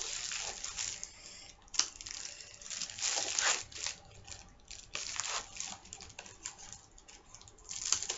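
Plastic mailer bag crinkling and rustling in irregular strokes as it is torn open by hand.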